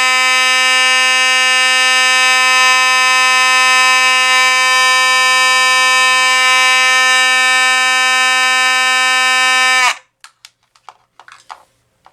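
Simplex 4903-9101 mechanical fire-alarm horn sounding a steady, continuous buzzing tone, really loud, its coil freshly cleared of dust. It cuts off suddenly about ten seconds in, followed by a few faint clicks.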